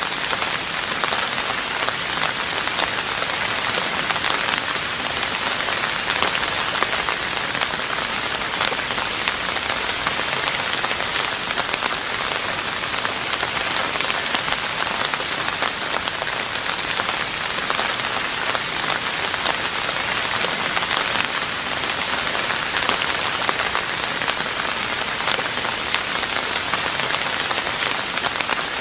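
Steady rain falling on a roof: a dense, even patter of countless drops with no let-up.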